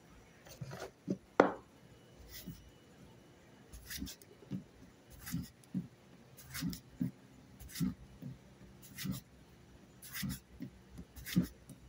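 A cotton tinder roll packed with wood ash being rolled back and forth under a palm on a plywood board, making hissing rubs and soft thuds at about one stroke a second. A few light knocks come first.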